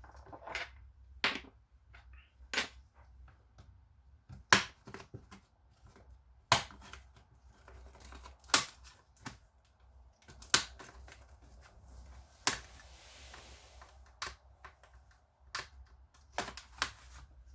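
Plastic clips of an HP 2000 laptop's screen bezel snapping loose as it is pried off with a pry tool: a dozen or so sharp clicks at irregular intervals. About two-thirds through there is a brief soft rustle.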